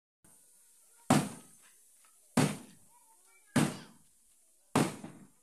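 Four heavy blows on metal, evenly spaced a little over a second apart, each ringing briefly as it dies away.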